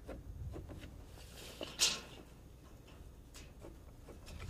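Rafter layout being marked along a wooden wall top plate: a few faint light taps and one short scratch a little under two seconds in.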